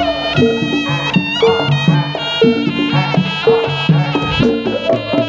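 Jaranan gamelan music played over a PA system: a slompret (Javanese shawm) holds a nasal, reedy melody above a steady pattern of pitched gong and drum strokes about twice a second.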